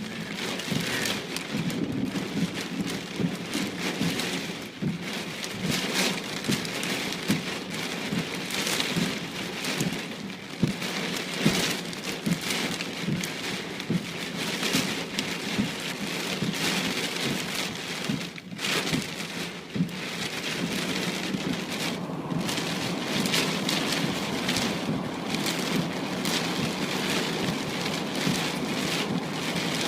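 Rain falling steadily, with many separate drops hitting a surface.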